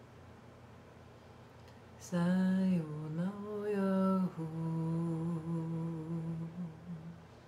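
A woman humming long held notes: after about two seconds of quiet, a loud note that dips and comes back up in pitch, then a softer, slightly lower note held steadily for a couple of seconds before it fades out.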